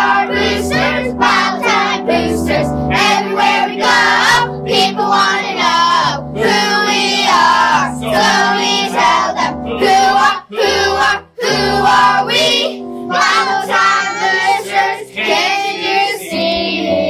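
A children's action song: young voices singing over an upbeat instrumental backing with a bass line that steps from note to note.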